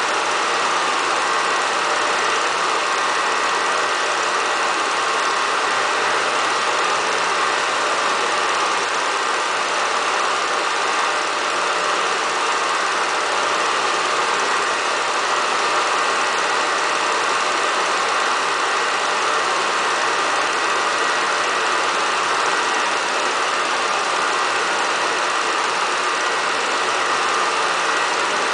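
A steady mechanical running noise with a faint whine in it, unchanging throughout, with no beat or single knocks.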